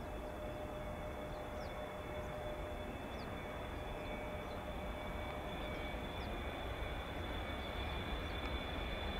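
Jet engine noise of a Boeing 777-300ER's GE90 engines on approach to land: a steady rumble with a high whine, growing slowly louder. Small birds chirp faintly now and then.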